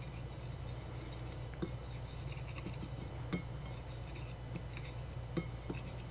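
Small wire whisk stirring flour and spices on a ceramic plate: faint, steady scratching, with three light clinks against the plate.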